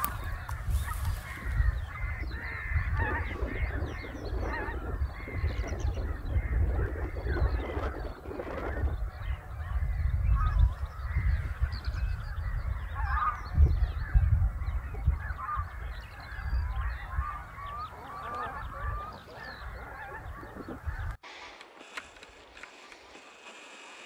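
A flock of geese honking, mixed with other waterfowl calls, over a loud low rumble. About three seconds before the end the sound cuts abruptly to a much quieter background.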